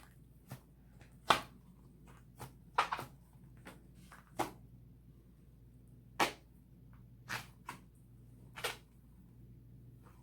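Homemade glue slime being kneaded and stretched by hand, giving irregular short, sticky pops and squelches, about a dozen, a few of them sharply louder.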